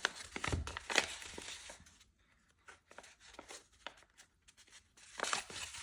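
Cardboard box being opened by hand: paper and cardboard rustling and tearing for about the first two seconds, then a quieter stretch with a few light taps and clicks, and rustling again near the end.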